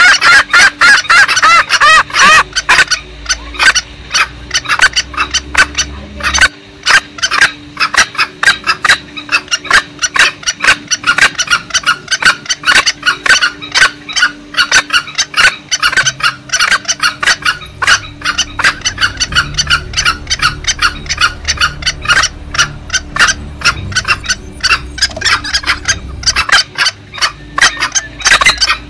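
Green junglefowl calls played as a hunting lure: a loud, fast, unbroken run of short clucking notes, several a second.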